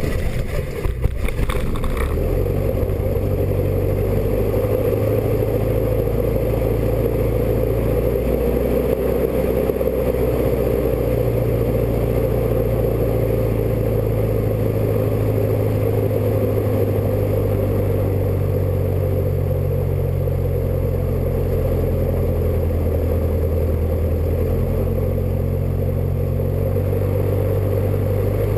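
Robin DR400's four-cylinder piston engine and propeller idling steadily, heard from inside the cockpit. The sound is uneven and rattly for about the first two seconds, then settles into a steady hum.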